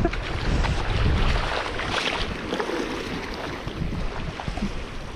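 Wind buffeting the microphone, with waves washing against a concrete breakwater.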